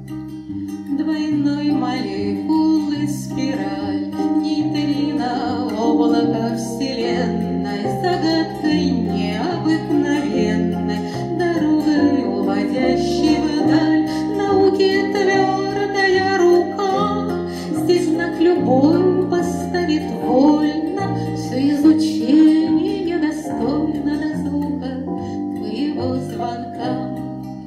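Live band music: an electric bass playing a stepping line under plucked, guitar-like accompaniment, with a woman's voice singing over it.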